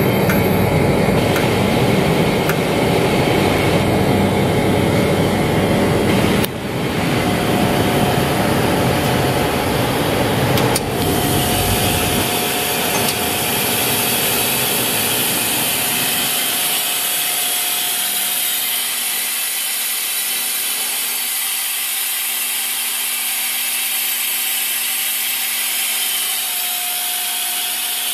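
Steady hum and hiss of running machine-shop equipment, with a heavy low rumble that fades away about twelve to sixteen seconds in, leaving the hiss and a faint steady tone.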